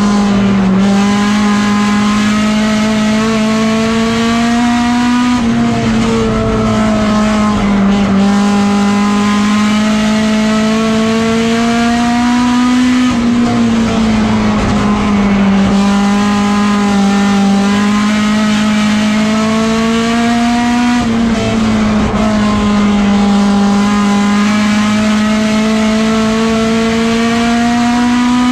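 Race car engine heard from inside the cockpit, running hard under load. Its pitch climbs slowly, then drops sharply about every eight seconds as the driver lifts off the throttle for the turns.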